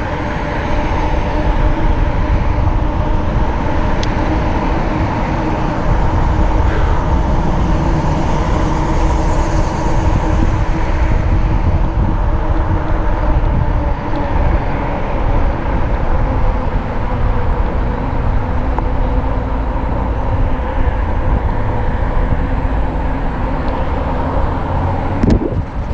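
RadRover fat-tire e-bike riding steadily on pavement: a continuous hum of the hub motor and fat tires, with a steady whine held at a constant pitch, over low wind rumble on the handlebar-mounted camera. A short knock and a dip in the sound come near the end.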